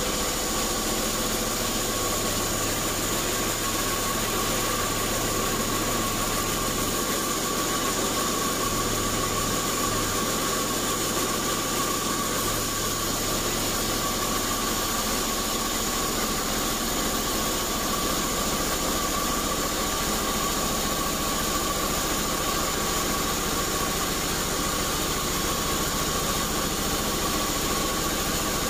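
Large vertical band sawmill running steadily, its blade sawing lengthwise through an old acacia log on the carriage, with a steady high hum over the cutting noise.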